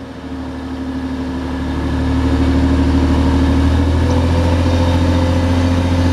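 TransPennine Express Class 185 diesel multiple unit pulling away under power: a steady low diesel engine drone that grows louder over the first two seconds as the train nears, then holds.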